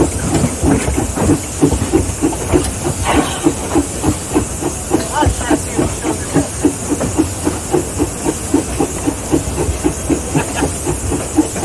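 Mason Bogie 0-6-4T steam locomotive under way, its exhaust chuffing in an even beat of about three a second over a steady hiss of steam.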